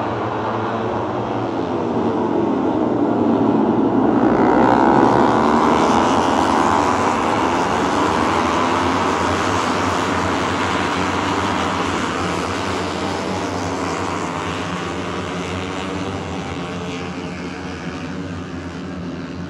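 A pack of Grand Prix racing motorcycles passing at speed, many engines at high revs overlapping into one loud, dense sound. It grows louder over the first five seconds or so, then slowly fades as the field moves away.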